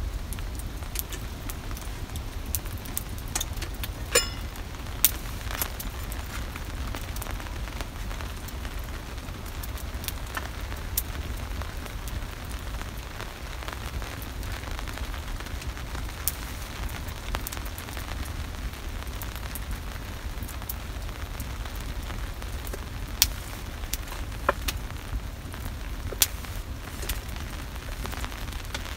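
Open wood fire crackling inside a canvas tipi, with scattered sharp pops over a steady low hiss.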